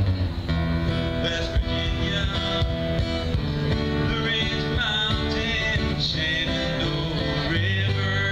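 Live country music from a duo playing guitars and singing, amplified through a PA.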